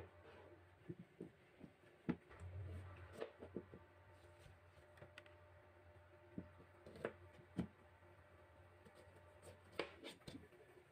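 Kitchen knife cutting a chayote on a plastic cutting board: faint handling sounds and scattered light knocks of the blade on the board, a few of them sharper.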